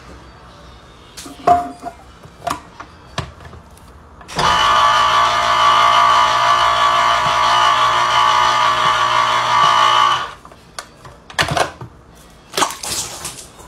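Electric can opener running for about six seconds as it cuts around a can's lid: a loud, steady motor hum that starts and stops abruptly. A few clicks and knocks of the can being fitted and lifted out come before and after.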